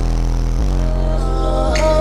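Loud bass-heavy music playing through a car's subwoofer system, deep bass notes stepping in pitch every half second or so, with a higher melody coming in about a second in.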